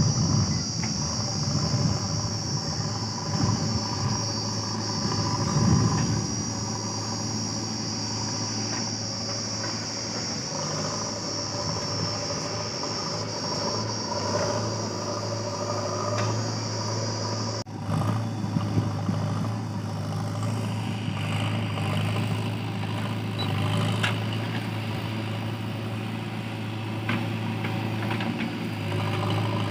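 Diesel engines of a JCB 3DX backhoe loader and a dump truck running steadily at a working idle, a steady low hum with a few light knocks. A high steady hiss runs through the first half and stops abruptly at a cut about 18 seconds in.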